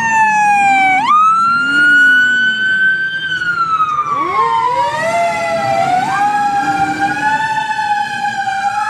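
Fire engine sirens wailing, the pitch sweeping slowly down and up with a sudden jump back up about a second in. A second siren winds up from low pitch about four seconds in and overlaps the first, over the low rumble of the truck's engine.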